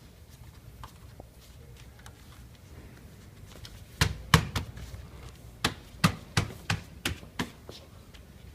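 A quick run of about nine sharp taps, starting about four seconds in and stopping near the end.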